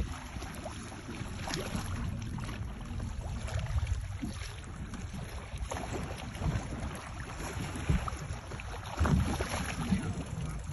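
Wind buffeting the microphone over water sloshing against a small boat, with a few faint knocks.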